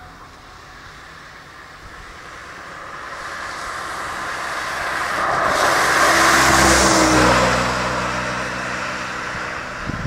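A car driving past on a wet road: its tyres hiss on the wet asphalt under a low engine hum. The sound grows from a couple of seconds in, is loudest about six to seven seconds in as the car goes by, then fades.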